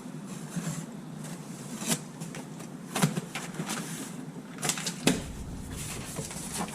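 A cardboard shipping box being opened and handled: scattered knocks, scrapes and clicks of cardboard flaps and packing, with a few sharper knocks about two, three and five seconds in.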